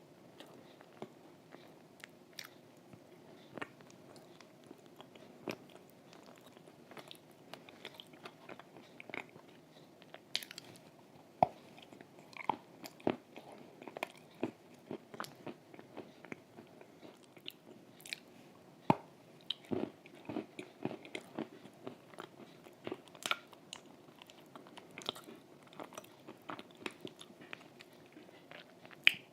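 Close-up chewing and crunching of edible chalk and clay, with irregular sharp bite clicks; the loudest bite comes about eleven seconds in.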